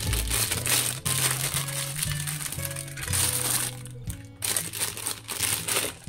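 Clear plastic packaging bag crinkling as a silicone pop-it fidget toy is pulled out of it, in three stretches with short breaks about a second in and about four seconds in, over background music.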